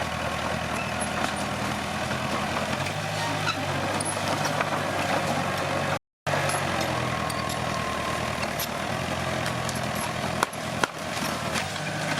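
Komatsu D21P bulldozer's diesel engine running steadily while working, with a couple of sharp knocks near the end. The sound cuts out for a moment about halfway through.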